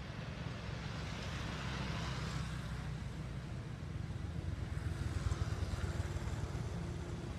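Motor vehicle traffic running steadily with a low rumble, the noise swelling about two seconds in and again about five seconds in as vehicles pass.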